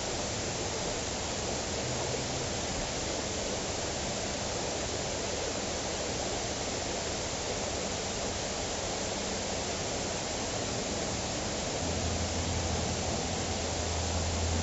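Steady rushing noise with no distinct events; a low steady hum joins it about twelve seconds in.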